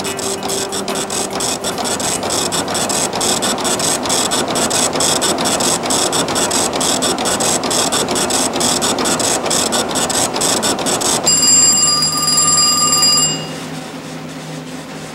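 Desk printer clattering steadily with a fast, even run of strikes as it feeds fanfold paper. About eleven seconds in a telephone rings once, a single two-second ring that is the loudest sound.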